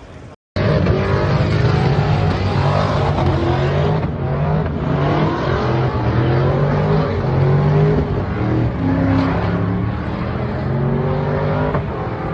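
Car engines running and revving, their pitch rising and falling. The sound cuts in abruptly about half a second in.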